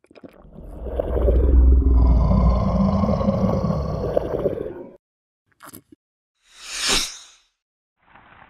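Cartoon monster sound effect: a deep roar lasting about five seconds that cuts off suddenly, followed about seven seconds in by a short whoosh that swells and fades.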